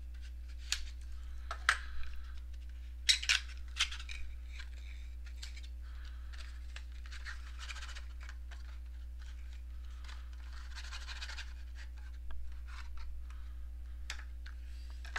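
Trading-card packaging being opened and handled: a few sharp clicks and scratches in the first four seconds, then stretches of crinkly rustling. A steady low electrical hum runs underneath.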